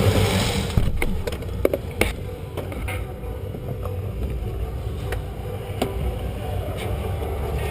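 Airsoft gunfire during play: scattered sharp cracks and clicks of shots and BBs hitting, most of them in the first three seconds, over a steady low hum.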